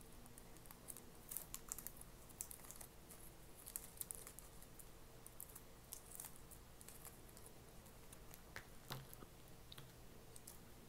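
Faint crinkling of a clear cellophane treat bag being handled, with scattered light ticks.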